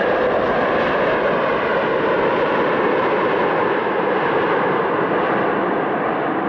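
Airliner jet engines running: a loud, steady rushing noise that holds without a break.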